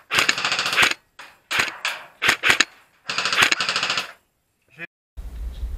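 Several short bursts of rapid automatic fire from a replica gun, the longest about a second, followed near the end by a low rumble on the microphone.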